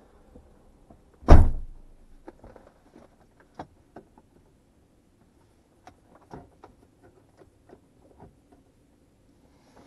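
A Mazda RX-8's door shuts with a single heavy thump about a second in, followed by scattered small clicks and taps inside the cabin.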